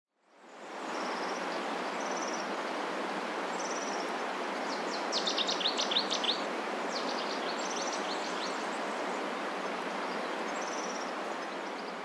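Steady outdoor background hiss fading in, with birds chirping: short high calls every second or two and a quick run of rapid chirps around the middle.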